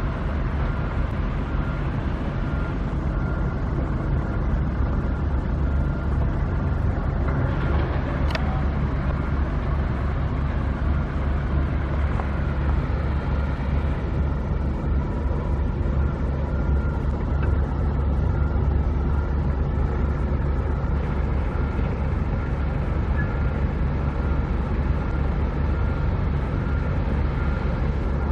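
Steady low rumble of a running motor vehicle engine, with a faint high whine that comes and goes and a single short click about eight seconds in.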